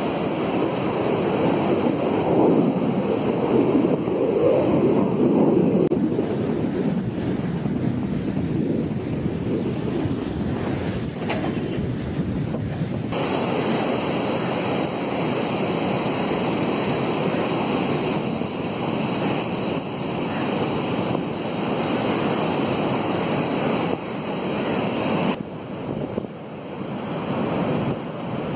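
Sea surf breaking and washing on a sandy beach, with wind buffeting the microphone. The steady rush changes abruptly a few times, about a fifth of the way in, near the middle and near the end.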